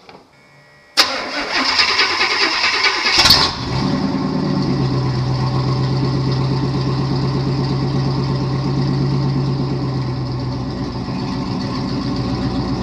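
Chevy tow truck's engine cranked over and started after a transmission swap. It cranks for about two seconds from about a second in, catches, and settles into a steady idle.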